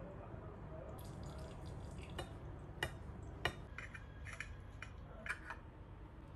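Knife cutting through a toast sandwich on a ceramic plate: a scatter of sharp clicks and short scrapes of the blade against the plate, the loudest about three and a half seconds in, over a faint low hum.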